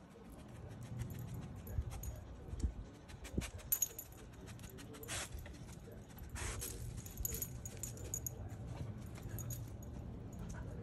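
A dog sniffing and moving about on dirt and concrete: many small scattered clicks and a few louder rustles, with a light metallic jingle of its collar tags now and then.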